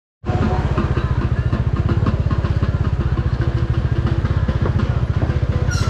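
Bajaj Dominar 400's single-cylinder engine running at low revs, a steady, rapid, even thump.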